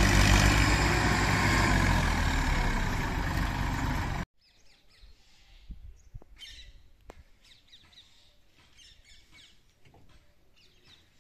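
A tractor's diesel engine runs steadily under load while hauling a loaded trolley, growing gradually quieter, and cuts off abruptly about four seconds in. After that, faint bird chirps and a few light clicks are heard.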